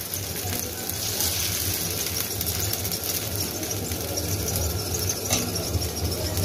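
Corn dosa batter sizzling on a hot griddle while a steel ladle is swirled round it in circles, the ladle scraping and squeaking against the pan.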